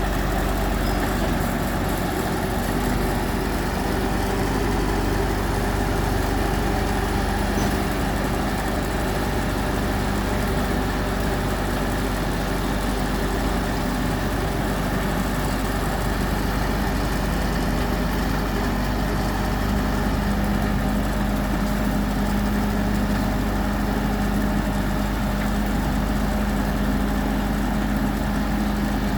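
Heavy diesel engine of road-construction machinery running steadily, a constant low hum that grows a little stronger about twenty seconds in.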